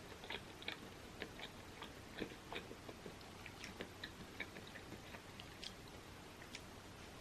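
A person eating: soft chewing with scattered small, sharp clicks, thinning out near the end.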